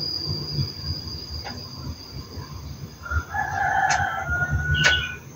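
A rooster crows once, about three seconds in, for roughly a second and a half, over a steady high-pitched whine. Two small clicks come near the end.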